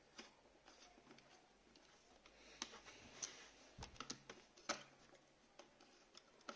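Faint, scattered clicks and ticks of a small screwdriver turning screws into a plastic Beyblade launcher's casing, most of them bunched together in the middle.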